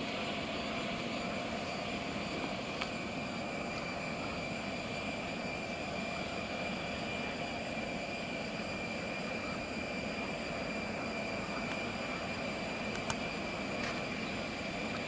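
Jet engines of an Airbus A330-300 running steadily, a constant whine made of several high tones over a hiss.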